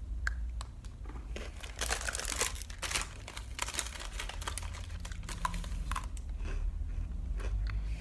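Plastic candy wrapper crinkling in irregular crackles, densest from about two to five seconds in, with scattered smaller crackles after.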